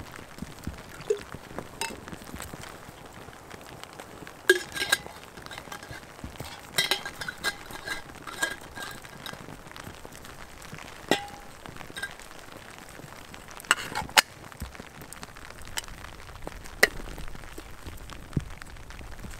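A blackened metal camp kettle being filled from a steel bottle and set onto a crackling campfire. Metal clinks and knocks are spread through, several ringing briefly, over the steady crackle and hiss of the fire.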